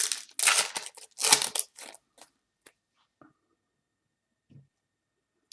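Foil trading card pack wrapper being torn open and crinkled in three loud crackling bursts over about the first two seconds, followed by a few faint clicks.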